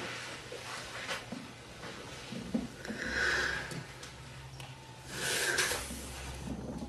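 A person breathing audibly twice, two short breaths under a second each and about two seconds apart, over a faint steady low hum.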